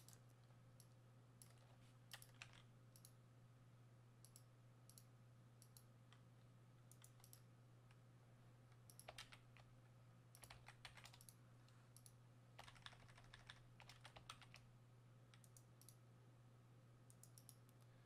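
Faint, scattered clicks from computer mouse and keyboard use, some in short clusters, over a low steady hum.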